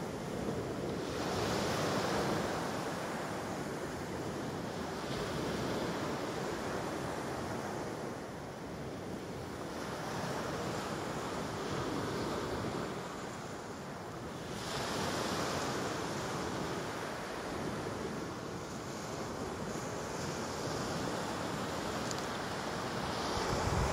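Small sea waves breaking and washing up a pebble beach, the surf swelling and fading every few seconds.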